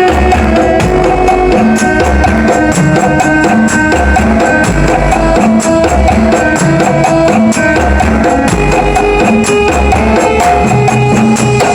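Very loud dance music with percussion and heavy, pulsing bass, blasted from a 'sound horeg' truck-mounted loudspeaker system.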